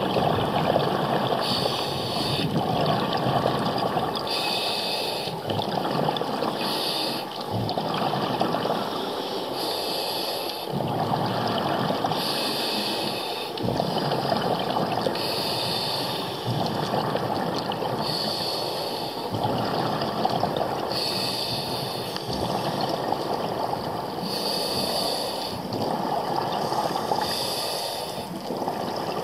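A diver breathing underwater through a scuba regulator: a short hiss with each breath every two to three seconds, over a steady rush of exhaled bubbles and water noise.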